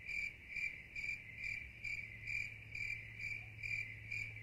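Cricket chirping: a high, steady trill that pulses about twice a second, over a low steady hum.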